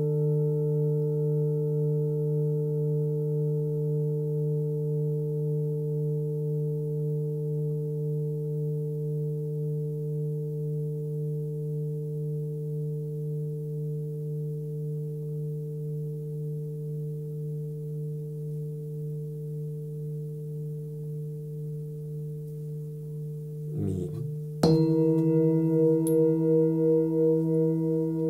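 A 25 cm hand-hammered Nepalese Full Moon singing bowl tuned to D (about 149 Hz) rings on after a mallet strike, its hum slowly fading with a gentle wavering beat. About 24 seconds in there is a brief scrape, then another bowl is struck with a felt mallet and rings out louder.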